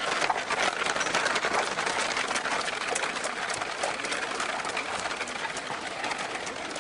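Horse-drawn carriage rolling along, its wheels and body making a dense, steady rattling crackle full of small clicks.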